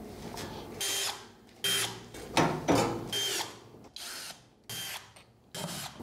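A series of six or seven short rustling, scraping handling sounds, each about half a second long with gaps between, a few with a brief squeak, from gloved hands working on plastic parts and wiring of a washing machine.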